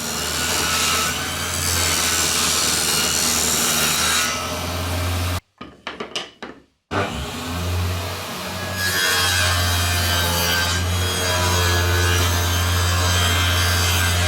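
Electric power tool working birch plywood with a steady motor hum and the rasp of the wood. It stops about five seconds in, a few knocks follow, and then it runs again.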